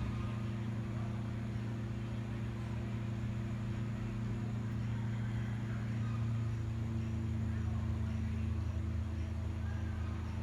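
A steady low hum of an engine or motor running at a constant speed, with no change in pitch.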